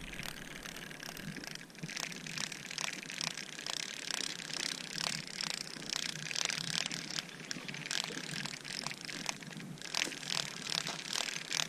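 Spinning reel being wound in, its gears ticking evenly about three times a second as line is retrieved.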